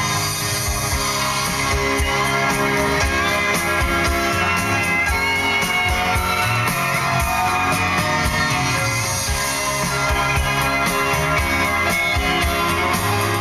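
Music with a strong bass and a steady beat, playing loudly through the car's Mark Levinson surround sound system in the cabin.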